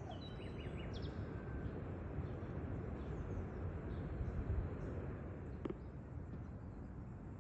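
Garden ambience: a steady low background rumble with a few short, high bird chirps in the first second or so, and a single sharp click near the end.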